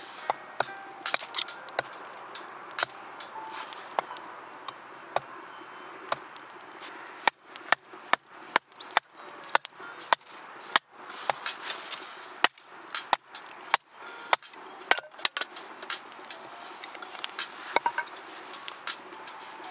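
Wood campfire in its early stage, kindling crackling and popping as it catches, with irregular sharp snaps that come thickest in the middle stretch.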